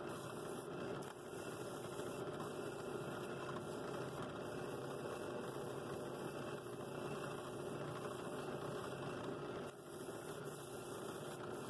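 Benchtop drill press running steadily with a sanding drum in its chuck, as a wooden bowl is pressed against the spinning drum. The level dips briefly about a second in and again near the end.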